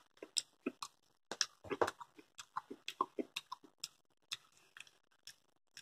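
A person chewing a mouthful of carbonara pasta: a run of quiet, irregular mouth clicks.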